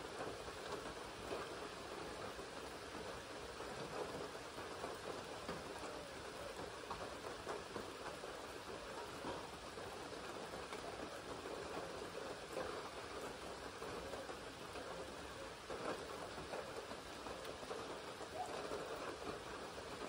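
Steady rain falling on a lake's surface and on the willows and grass around it: an even hiss of countless drops with fine close ticks, unchanging throughout.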